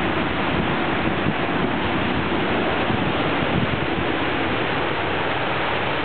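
Heavy wind-driven rain pouring down in a severe wind storm: a loud, steady, dense hiss with no let-up.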